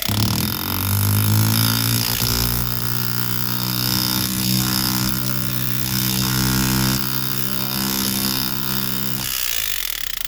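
Foredom flexible-shaft tool with its hammer handpiece, running as a steady pitched buzz: it spins up with rising pitch over the first second, holds steady, and winds down about nine seconds in.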